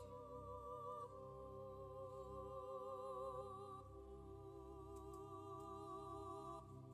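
Soft background music of long held notes with a gentle vibrato, moving to a new note about a second in and again near four seconds.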